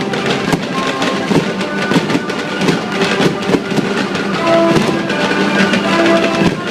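Fireworks show with music playing, a steady tune of held notes mixed with frequent fireworks pops and bangs.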